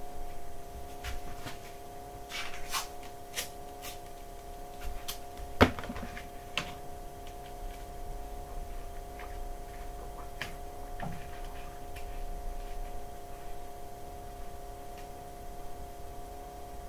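Handling noise of a large green sheet being held against a wooden frame and fixed with masking tape: rustles, scraping tape pulls and scattered taps, with one sharp knock about five and a half seconds in. A steady hum of a few tones runs underneath.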